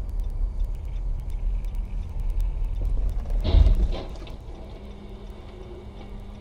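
Low rumble of a car driving on a snowy road, heard from inside the cabin through a dashcam. A short, loud noise comes about three and a half seconds in, after which the rumble drops to a quieter, steady hum.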